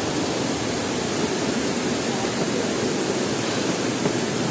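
Namaste Jharna waterfall heard from close up: a steady, loud rush of falling water.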